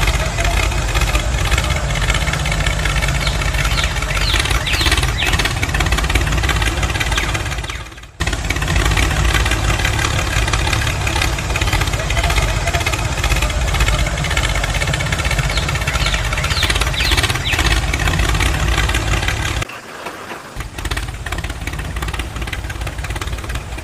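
Tractor engine running steadily with a deep, heavy low end, the sound briefly cutting out about eight seconds in and thinning near the end as the deep part drops away.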